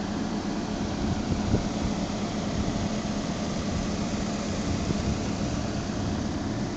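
Excavator engine running steadily with a low, even hum, heard from high on the boom while the hydraulics swing it around.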